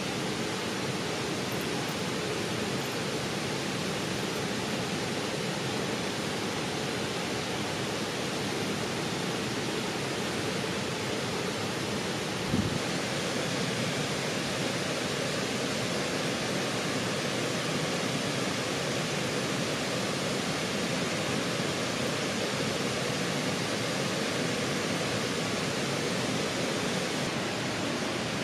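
Steady rushing water, the even roar of a creek or waterfall, with one short low thump about halfway through.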